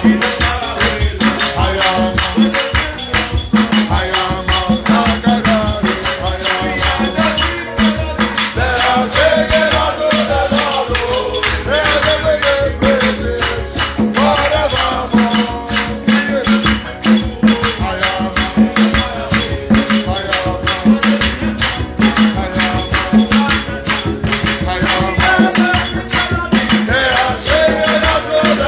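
Worship music: a shaker keeping a fast, steady rhythm under singing voices and sustained instrumental notes.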